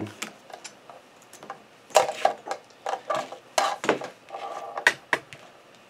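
Irregular light clicks and knocks as a sewing machine's power cord and its plastic plug are handled and shifted about.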